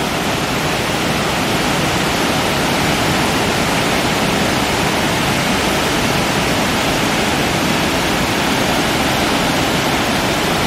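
Steady rush of water pouring over a low dam's spillway and running over the rocks of the river below.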